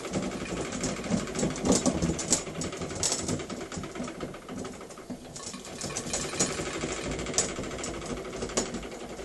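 Small model steam engine (a Märklin 4097 unit on a homemade boiler) running the rope-haulage winding gear, a fast mechanical clatter of many small knocks that eases briefly about halfway through and then picks up again. The owner puts the banging down to the engine's eccentric.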